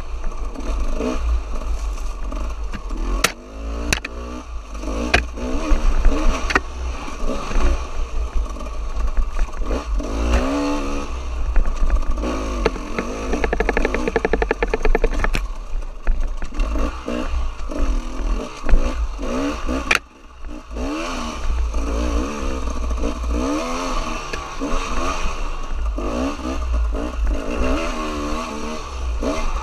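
Dirt bike engine revving up and down as it is ridden over rough trail, with clattering knocks from the bike and a heavy rumble of wind on the microphone. The engine note drops away briefly about two-thirds of the way through.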